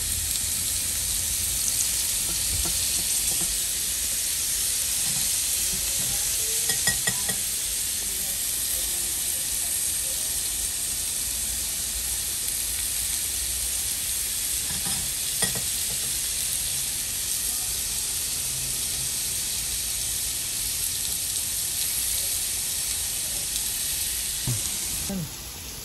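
Chicken leg quarters sizzling on the hot grates of a preheated gas grill as they are basted with chicken oil and melted butter: a steady hiss with a few faint small clicks, dropping off abruptly near the end.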